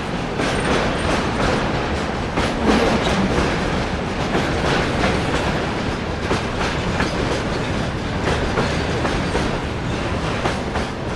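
Train running along the rails at steady speed: a continuous rumble with frequent irregular metallic clacks and knocks of the wheels and cars.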